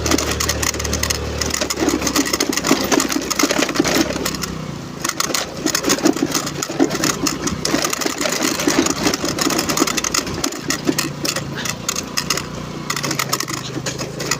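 Honda Navi's small single-cylinder engine running as the bike rides over a rough off-road track, with frequent clicks and knocks over the engine throb.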